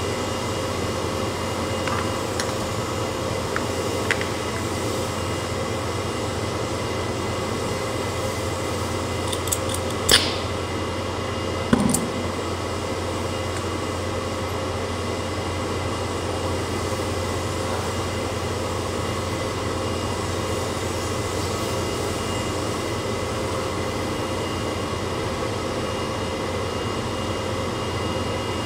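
Brazing torch flame hissing steadily on a window air conditioner's copper pipework, with two sharp clicks about ten and twelve seconds in.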